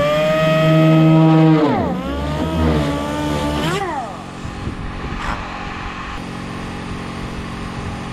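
Engine revving: its pitch dips and climbs, holds, drops sharply and climbs again as if through a gear change, then settles into a steady drone about halfway through.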